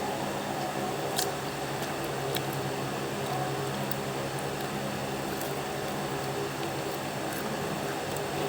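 Steady low hum of a fan or air conditioner, with a few faint clicks and mouth sounds of someone eating fried snacks.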